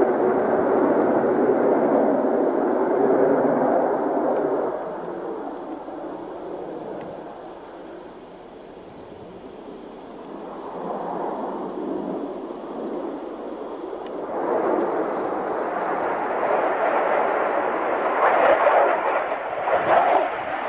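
Jet engine noise from Blue Angels F/A-18 Hornets flying past: a rushing sound that fades over the first few seconds, then swells again about two-thirds of the way through and turns rough and crackling near the end.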